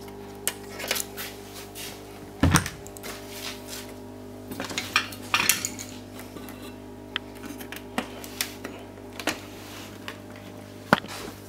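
Scattered light metallic clicks and clinks of handling around the TV's open metal chassis, with a sharper knock about two and a half seconds in and another near the end, over a steady low hum.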